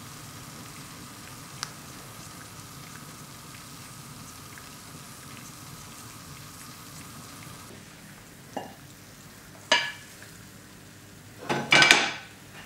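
Eggs sizzling steadily in a frying pan on a cast-iron wood-stove top. Near the end come a few sharp metallic knocks and a louder clatter as the empty pan is handled and set on the cast-iron stovetop.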